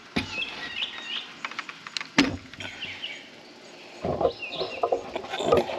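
Plywood boards handled on a plywood work table: one sharp wooden knock about two seconds in, then rustling and knocking handling noise in the second half, with birds chirping in the background.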